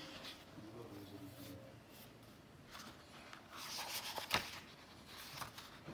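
Paper pages of a hardcover comic book turned by hand, rustling, with a sharp snap of paper about four seconds in.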